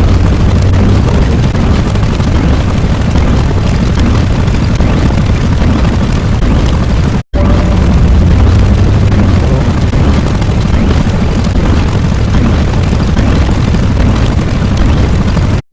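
Loud, steady rumbling sound effect like a continuous explosion, heaviest in the low end. It cuts out for a split second about seven seconds in and again right at the end, then starts over each time.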